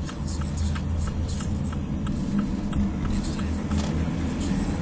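Car driving on a wet road, heard from inside the cabin: steady engine and tyre rumble, with a light ticking about three to four times a second.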